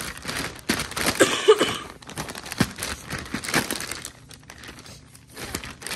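Plastic bag crinkling and rustling in irregular bursts as seasoning is mixed into the flour inside it. It goes quieter for a moment near the end.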